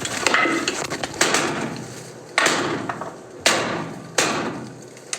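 A volley of shotgun shots, about five sharp reports roughly a second apart, each with a short fading echo.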